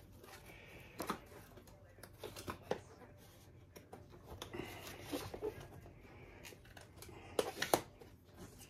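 Paper rustling and scattered light taps and clicks as craft packaging and sheets are handled, with a sharper click about a second in and a quick cluster of louder clicks near the end.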